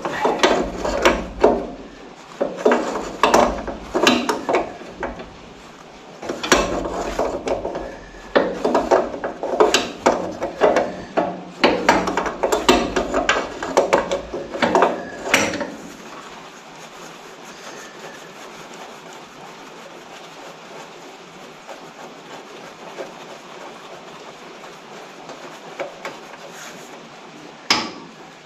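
Hand tools clicking and knocking on the hydraulic filter fittings of an excavator as a leaking tank-valve connection is worked loose to be resealed with thread tape. The clicks come in irregular bursts for about 16 seconds, then stop, leaving a steady faint background noise with one more knock near the end.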